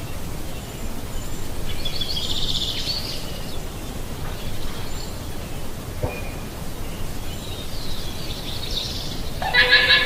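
Llama calling: fainter high-pitched calls about two seconds in and again around eight seconds, then a strong pitched call rich in overtones starting near the end, over a steady background hiss.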